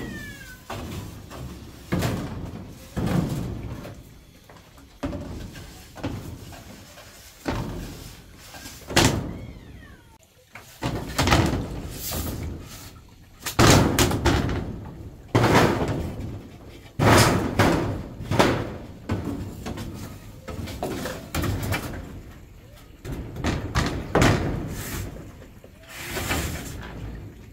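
Heavy blows struck one after another, roughly once a second with short pauses, each ringing out briefly: the knocking of hammering or chopping work.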